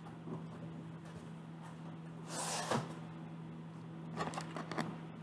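Items being handled during an unboxing: a brief rustle of packaging about two and a half seconds in, then a quick run of light clicks and clatters near the end, over a steady low hum.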